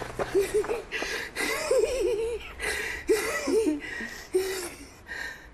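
A man laughing with delight in several short, high, wavering bursts.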